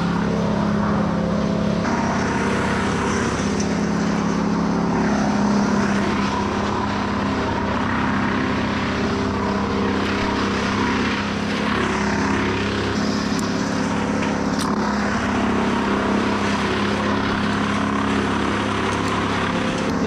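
An engine running steadily at a constant speed, with small shifts in pitch but no revving.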